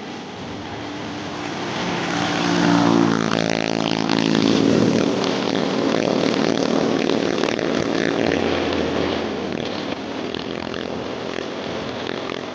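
A small engine running, growing louder to a peak a few seconds in, then slowly fading as it passes.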